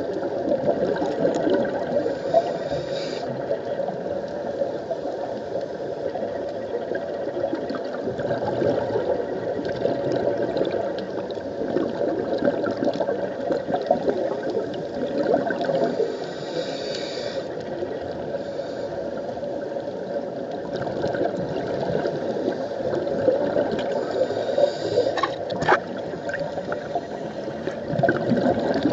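Underwater sound through a camera housing: a steady watery rumble with the bubbling of scuba divers' exhaled air, with a few brief higher hissing patches and scattered ticks.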